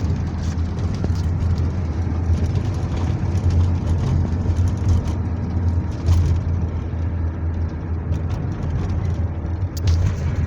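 A vehicle's engine running steadily, heard from on board, with scattered knocks and rattles over a low rumble.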